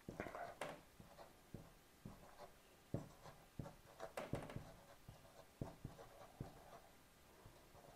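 Faint, scattered strokes and short squeaks of a dry-erase marker writing letters and drawing lines on a whiteboard.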